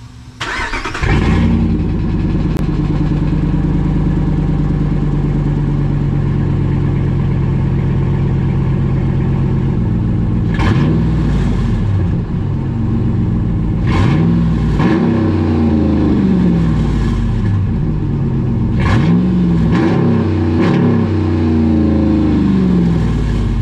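RAM 1500's Hemi V8 fired up with its muffler and tailpipes removed, the exhaust dumping open under the cab: it catches about a second in and idles loud, then from about ten seconds in it is revved up and back down in a series of short blips. Loud but terrible-sounding, kind of poopy, as an exhaust simply cut off behind the muffler.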